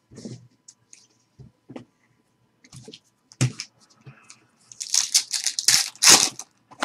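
Foil trading-card pack wrapper being torn open and crinkled, a loud crackling rush about five seconds in. A few light taps and a single thump of cards set on the table come before it.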